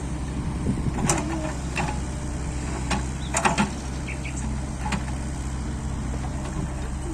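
Excavator's diesel engine running steadily, with a few short sharp knocks scattered through.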